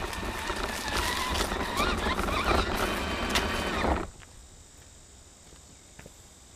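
RC crawler's electric motor and geared drivetrain whining and rattling as the truck drives, heard from a camera mounted on its body; the whine wavers with throttle. It cuts off suddenly about four seconds in as the truck stops, leaving low background hiss and a couple of faint clicks.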